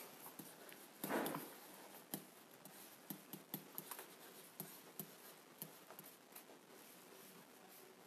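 Dry-erase marker writing on a whiteboard: faint, irregular taps and strokes, with one brief louder sound about a second in.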